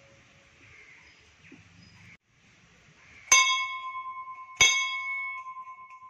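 Hanging temple bell struck twice, about a second and a half apart, a little after halfway; each stroke rings on in a pulsing, slowly fading tone.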